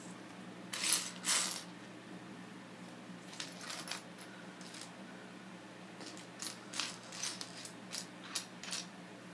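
Plastic Lego bricks clattering and clicking against each other and the wooden floor as a hand sorts through them: two louder clatters about a second in, then a series of short sharp clicks.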